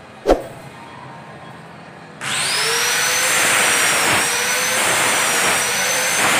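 A sharp knock, then about two seconds in an electric power tool's motor switches on, whines up to speed and runs steadily and loudly with a high whine.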